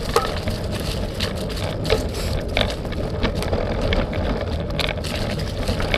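Bike riding over a rough trail: a steady low rumble with frequent sharp rattles and clicks from the bike jolting over the ground.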